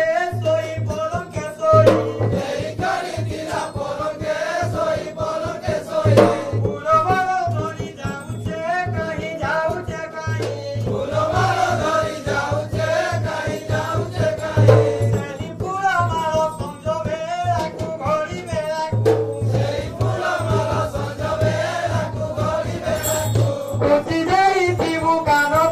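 Danda nacha folk song: voices singing over fast, continuous drum strokes on a dhol.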